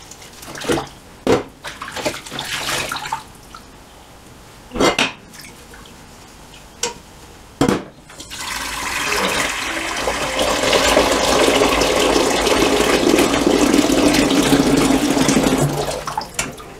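A stainless steel pot being washed at a steel sink: a few sharp metal knocks as it is scrubbed, then about halfway through the tap starts running steadily as the pot is rinsed under it, stopping just before the end.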